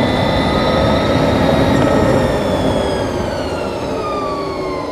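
Electric motor and drivetrain of a 2020 Harley-Davidson LiveWire whining under way, over wind and road noise at the helmet. The whine climbs slightly, then falls steadily from about halfway as the bike slows.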